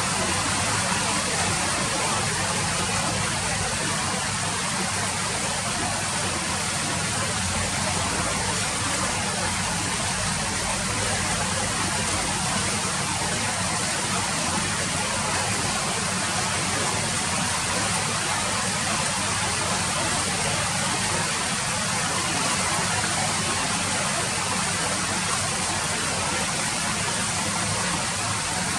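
Rain falling steadily, an even wash of sound with no single drops or gusts standing out.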